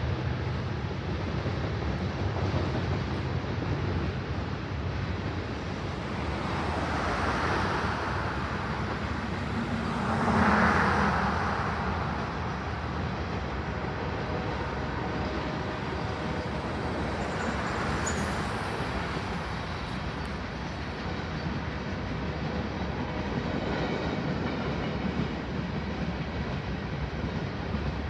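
Steady rumble of a manifest freight train's cars rolling along the track, with road cars swelling past a few times; the loudest pass comes about ten seconds in.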